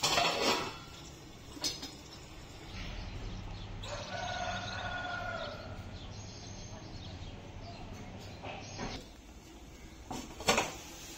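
Onions, herbs and green chillies frying in a covered pan, with a clatter at the start and a sharp knock a little before the end. About four seconds in, a drawn-out call is heard in the background.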